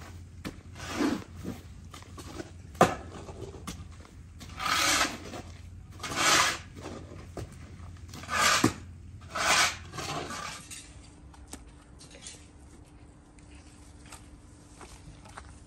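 A series of short scraping and rubbing sounds, with a couple of sharp knocks, from hands-on work. After about ten seconds it goes quieter and a faint steady hum comes in.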